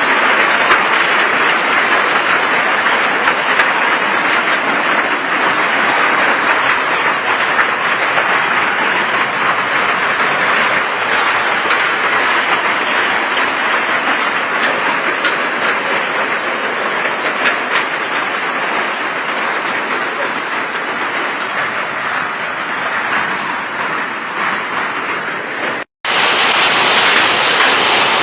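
Heavy rain and hail pelting down in a dense, steady hiss of impacts. The sound drops out for an instant near the end and carries on.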